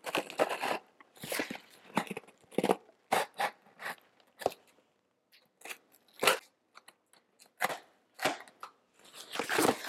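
Scissors cutting through packing tape on a cardboard box: a run of irregular crisp snips and short scraping cuts, with brief pauses between them.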